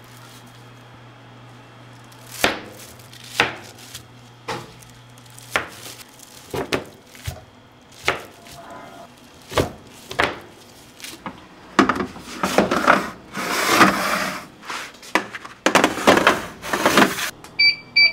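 Metal bench scraper chopping down through chocolate-chip scone dough onto the work surface: a series of separate knocks, then denser scraping and rubbing as the cut pieces are worked. Near the end, a few short electronic beeps from an oven's control panel.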